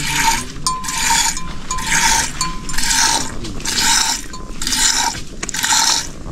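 Rhythmic scraping or rubbing strokes, about one a second and evenly paced.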